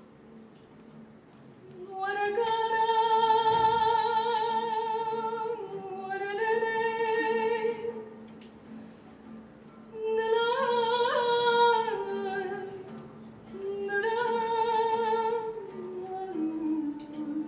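A woman singing improvised phrases, four long held notes with vibrato and ornaments; the last phrase steps down in pitch. A faint low steady tone sounds underneath.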